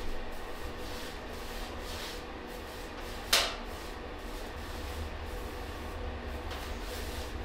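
Paintbrush strokes brushing paint onto wooden stair risers: a steady scratchy swishing in quick repeated strokes, with one sharp click about three seconds in.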